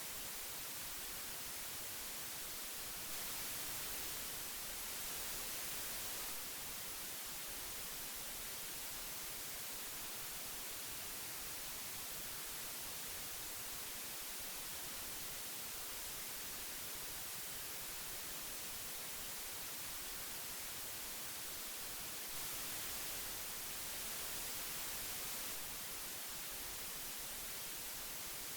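Steady hiss of old magnetic tape, strongest in the treble, swelling slightly louder and brighter twice for a few seconds.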